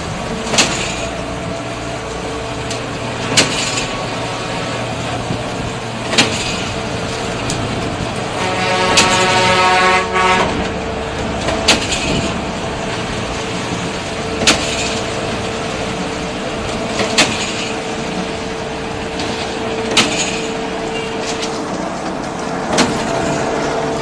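A concrete mixer pump running under load: a steady machine hum broken by a sharp clank about every three seconds, typical of the pump's cylinders changing stroke. Near the middle, a horn-like tone sounds for about two seconds.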